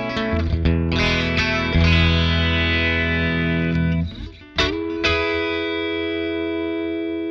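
Electric guitar played through a Catalinbread NiCompressor FET compressor pedal set to a high compression level: a run of notes and chords, a short break about four seconds in, then a chord struck hard and left to ring with long, slowly fading sustain.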